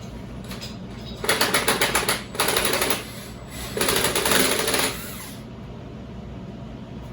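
Impact wrench hammering in three short bursts of about a second each, taking bolts off a pit bike.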